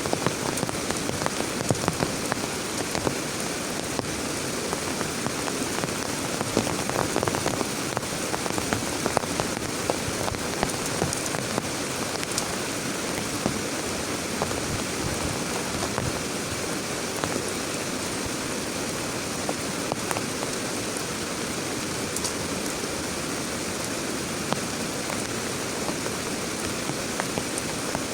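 Heavy rain falling steadily, with many sharp taps of individual drops striking a surface close by.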